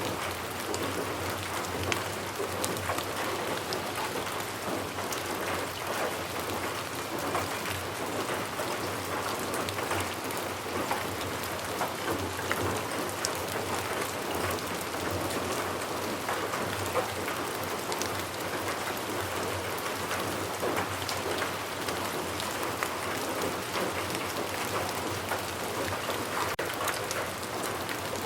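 Steady rainfall, with many individual drops ticking sharply on a surface over an even hiss.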